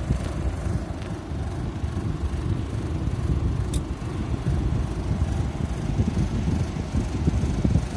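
1968 GE-Hotpoint window air conditioner with a GE single-vane rotary compressor, running with a steady low, uneven noise of fan and compressor; the unit has a vibration noise that the owner puts down to mishandling during salvage. A single faint high tick sounds about halfway through.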